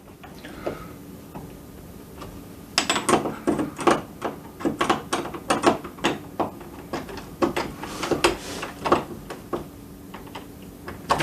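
Phillips screwdriver tightening a door knob's mounting screws: after a quiet start, a long run of irregular small metallic clicks and ticks, a few a second.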